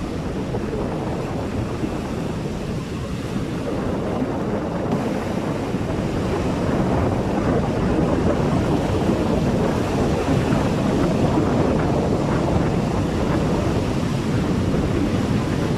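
Sea surf washing onto a beach, with wind buffeting the microphone: a steady rushing noise that grows a little louder about six seconds in.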